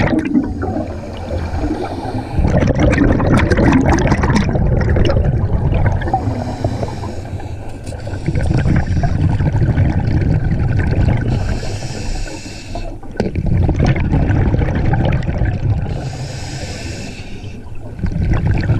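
Scuba diver breathing through a regulator underwater: a hiss on each inhale through the demand valve, then a low rumbling burble of exhaled bubbles, repeating every four to five seconds.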